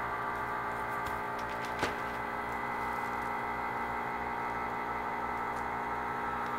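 Steady electrical hum with one light click about two seconds in.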